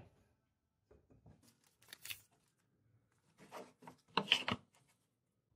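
A sheet of paper rustling as it is handled and laid over a wooden board, in three short bursts, the last the loudest.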